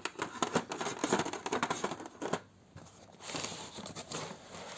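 Packaging being handled: plastic rustling and crinkling with irregular crackles, pausing briefly about halfway through, then rustling again.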